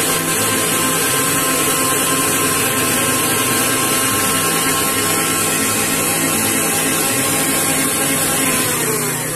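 Electric kitchen mixer motor running steadily, then winding down with a falling pitch near the end as it is switched off.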